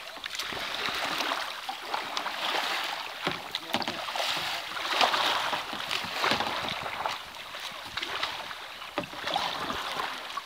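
Kayak paddles dipping and splashing in river water, a rushing, splashy hiss that surges and falls unevenly with the strokes.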